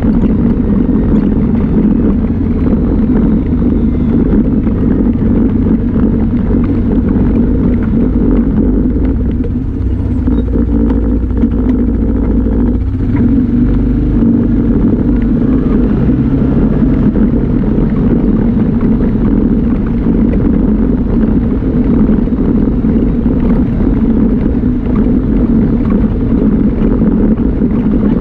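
Engine of an off-road vehicle running steadily on a gravel mountain road, with rumble from the tyres and the ride.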